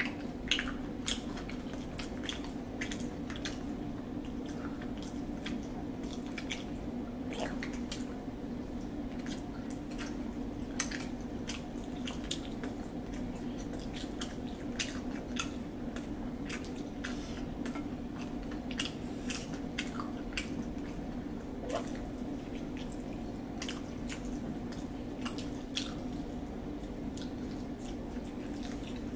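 Two people eating rice by hand: chewing and mouth sounds with scattered small, irregular clicks and smacks. A steady low hum runs underneath.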